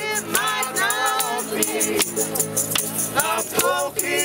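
Live acoustic group music: several voices singing over strummed ukulele and acoustic guitar, with a steady shaken rhythm from a tambourine and hand shakers.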